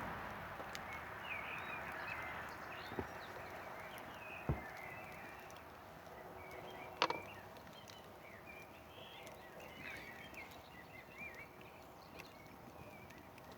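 A campfire giving a few sharp pops, the loudest about seven seconds in, while birds chirp faintly. A steady rushing sound fades away over the first few seconds.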